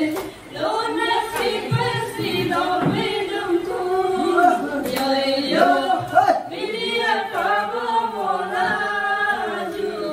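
A group of people singing together without instruments, the voices running on through with only a brief dip just after the start.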